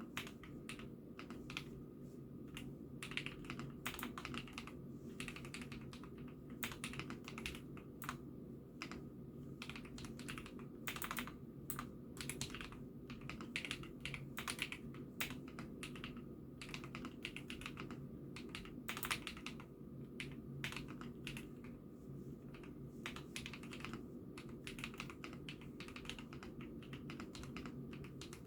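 IKKI68 Aurora mechanical keyboard being typed on continuously, a dense, irregular run of key clacks with a steady low hum underneath.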